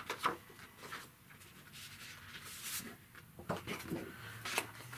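Sheets of drawing paper rustling and sliding as loose pencil portraits are swapped by hand, in several short scrapes and crinkles.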